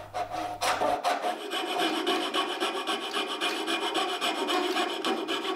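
A coping saw cutting out the waste between dovetail tails in a hardwood board, with quick, even rasping strokes. In the first second, back-saw strokes are heard in the dovetail kerfs.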